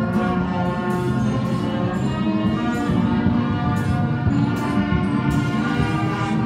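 Brass band music, many instruments playing held notes together.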